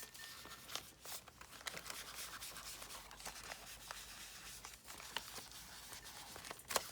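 Paper rustling and scratching with many small ticks and taps, as craft papers are handled and worked onto a journal page; one sharper tap near the end.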